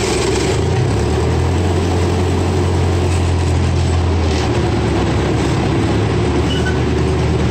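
Amusement-park miniature train's engine running under way: a steady low drone that strengthens about half a second in and eases back after about four and a half seconds.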